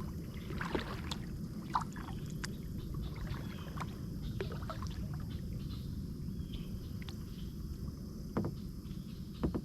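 Kayak on the water: a steady low rumble of water and wind against the boat, with scattered light knocks and small splashes, a few louder ones near the end.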